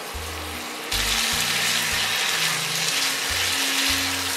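Chicken and julienned vegetables sizzling in hot oil in a nonstick frying pan as they are stir-fried with a spatula; the sizzle grows louder about a second in.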